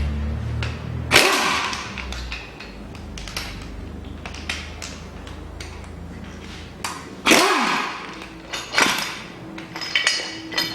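Hand tools and a loosened metal engine bracket being worked off an engine: scattered sharp metal knocks, loudest about a second in and again around seven and nine seconds, with lighter clinks near the end.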